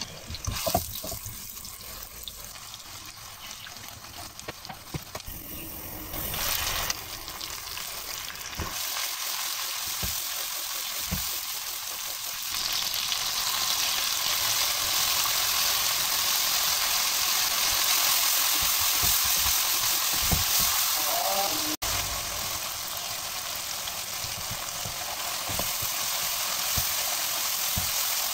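Chopped onion, then tomato, sizzling in hot oil in a nonstick wok, with a wooden spoon stirring and knocking against the pan now and then. The sizzle gets louder and hissier about halfway through.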